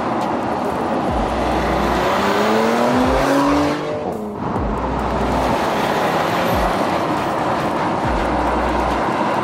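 Porsche Macan Turbo's 2.9-litre twin-turbo V6 running hard at speed with road and tyre noise. The engine note rises in pitch for about two seconds, breaks off about four seconds in, then runs on steadily.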